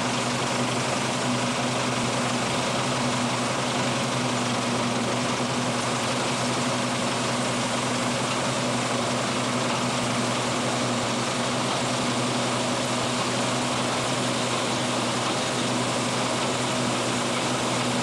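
Deutz-Fahr M35.70 combine harvester running steadily at work in standing wheat: an even drone of engine and threshing machinery with a steady low hum underneath.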